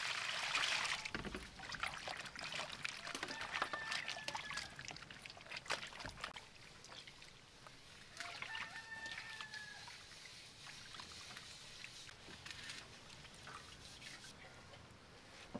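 Water poured into a bowl over charred beef, then hands washing and rubbing the meat in the water with sloshing and small splashes. A chicken calls twice in the background, about four seconds in and again near the middle.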